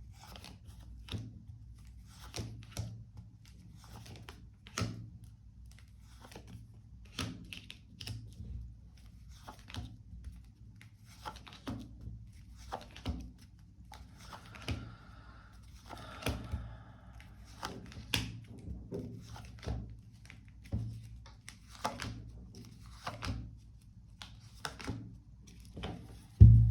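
Tarot cards being handled on a tabletop: irregular light taps and clicks as cards are laid down, a brief rustle about halfway through, and a heavier thunk near the end.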